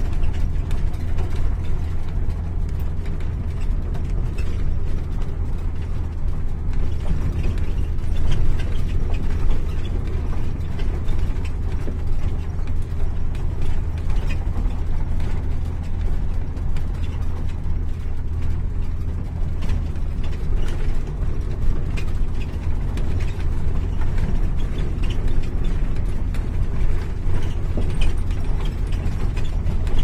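Motorhome travelling on a dirt road, heard from inside the cab: a steady low engine and road rumble with constant rattling and clicking over the rough surface.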